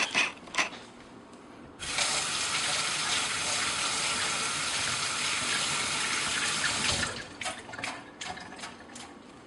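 Kitchen sink tap turned on about two seconds in, water running steadily for about five seconds, then shut off abruptly; a few light clicks and knocks of kitchen handling come before and after it.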